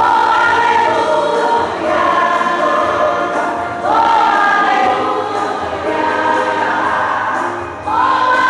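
Choir singing a gospel song in long held notes, with a new phrase starting about every four seconds.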